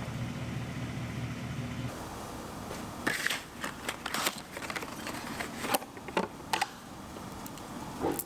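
A steady low hum that cuts off about two seconds in, followed by a string of sharp clicks and knocks, typical of hand tools and parts being handled during engine work.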